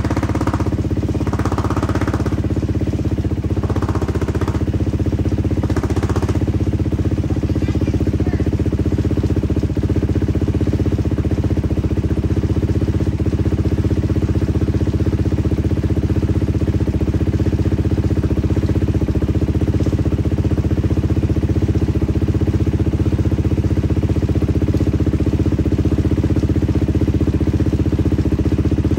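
Beta 500 RR-S dirt bike's single-cylinder four-stroke engine idling steadily through a newly fitted FMF exhaust.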